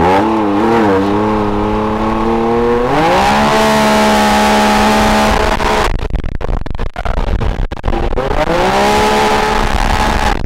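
Can-Am Maverick X3 Turbo R's turbocharged three-cylinder engine under way: the revs climb about three seconds in and then hold at one steady pitch as the CVT takes up the speed. About six seconds in the engine note breaks off into a choppy rattle for roughly two seconds, then the revs rise again and hold.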